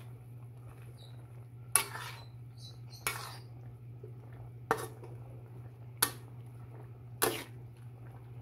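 Spatula knocking and scraping against the pan (kawali) while pork pieces in sauce are stirred: five strokes a little over a second apart, over a steady low hum.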